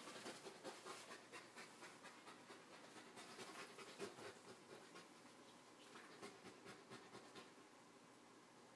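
Faint panting and scuffling of a Bernese mountain dog and a Pomeranian play-wrestling on a bedspread, with many quick soft rustles of fur and fabric that ease off near the end.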